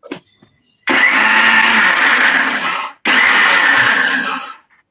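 Electric blender with a stainless-steel jug running in two pulses, about two seconds and then a second and a half, with a brief stop between. It is blending fresh red chilies and chili padi with calamansi lime juice into a chili sauce.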